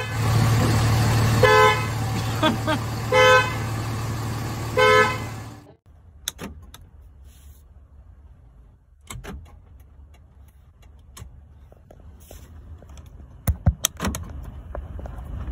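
Dodge Ram pickup's horn honking four short times, about a second and a half apart, over the engine idling: the warning that sounds when the driver's door is opened with the engine running and the truck not in park. After the horn stops, a few light clicks from a truck's door handle and switches.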